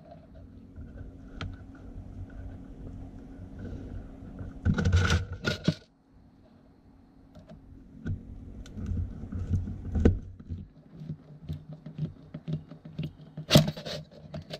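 Screwdriver turning a long screw through a 3D-printed plastic fan adapter into a 92 mm fan's frame: irregular scraping and small clicks, with louder handling knocks about five seconds in, about ten seconds in and near the end, over a low steady hum.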